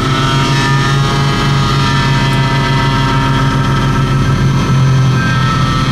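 Piston engine of an amphibious light aircraft, heard from inside the cockpit in flight and running with a steady drone.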